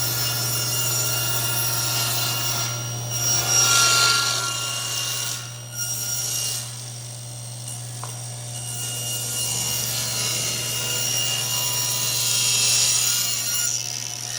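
Power saw ripping wooden boards to width: a steady motor hum under a rasping cutting noise that swells as the blade bites into the wood, loudest about four seconds in and again near the end.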